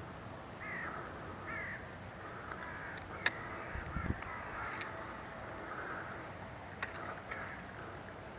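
Faint bird calls in the open air, short calls every second or so, with a few sharp clicks and a low thump about four seconds in.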